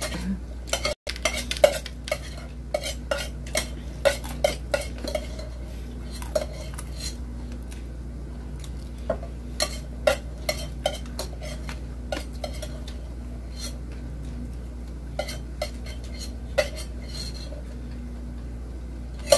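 Sounds of a meal being eaten by hand: irregular short clicks and clinks of plates and chewing, thickest in the first few seconds and again around the middle, over a steady low hum.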